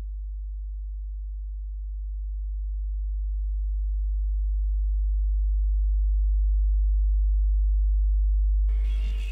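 A deep, pure low sine tone, a sub-bass drone, that starts abruptly, swells louder over several seconds, holds, and drops away near the end.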